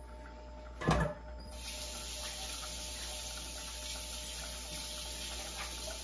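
A short knock about a second in, then a kitchen water tap running steadily.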